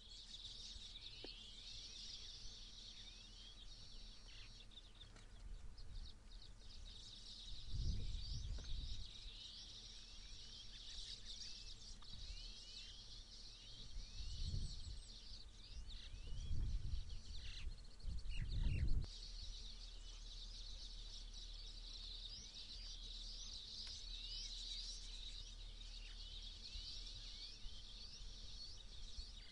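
Many small birds chirping continuously in a dense, overlapping chorus. A few low, muffled bursts stand out about 8, 14, 16 and 18 seconds in.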